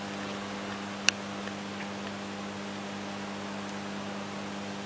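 Steady low electrical hum over a faint even hiss, with a single sharp click about a second in.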